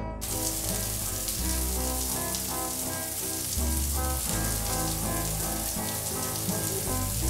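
Water from an overhead rain shower head spraying steadily onto a person and the tiled floor. It starts just after the beginning and cuts off abruptly at the end, over steady background music with deep held bass notes.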